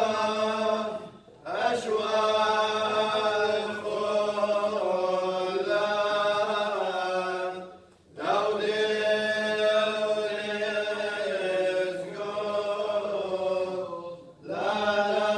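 Assyrian church liturgical chant sung in unison, a slow melody held in long phrases broken by short pauses for breath about every six to seven seconds.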